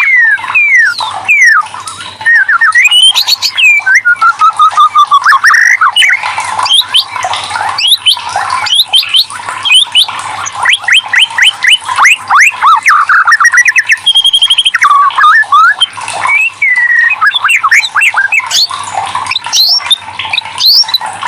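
White-rumped shama (murai batu) singing a long, fast, varied song: quick rising and falling whistles, rapid trills of repeated notes and harsh chattering phrases, with hardly a pause.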